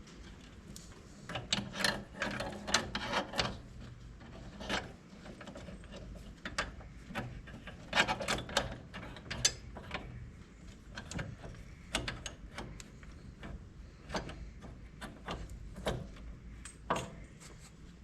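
Ratchet wrench clicking in quick runs as it turns, with scattered single metal clicks and knocks between, during hand-tool work on a corn planter's wheel hub.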